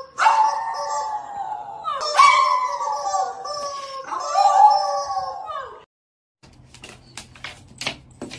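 Small white dog howling with its head raised: three long howls, each sliding down in pitch. After a short silence come a few light taps near the end.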